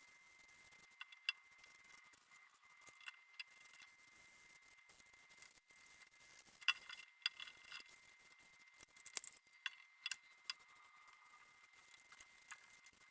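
Scattered light clicks and taps of small hard objects being handled, some in quick little clusters, over a faint steady high-pitched tone.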